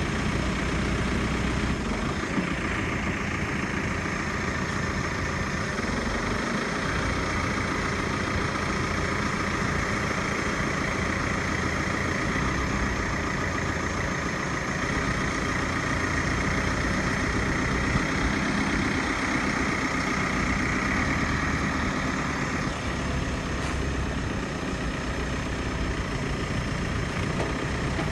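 JCB 5CX backhoe loader's diesel engine running steadily, with a higher whine that comes in about two seconds in and cuts off about five seconds before the end.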